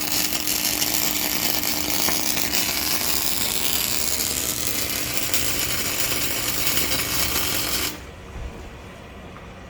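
Panasonic KR II 500 CO2/MAG welder's arc crackling evenly, with a steady hum underneath, then cutting off suddenly about eight seconds in as the arc is broken. The smooth, even crackle is a well-running weld, one that sounds "very nice".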